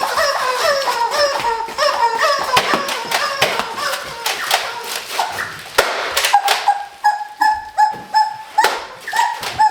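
Repeated short squeaks from the squeaky gear worn by the players as they move, mixed with sharp taps and clicks. The squeaks glide downward in pitch at first, then come as short steady squeaks about twice a second in the second half.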